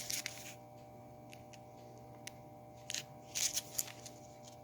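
Brief crinkling and rustling of firecracker packs and their bag being handled: one burst at the start and a cluster about three seconds in, over a faint steady hum.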